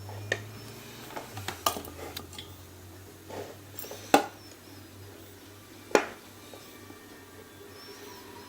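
Small metal clicks and taps of lock-picking tools being handled against a Brinks padlock, with two louder knocks about four and six seconds in.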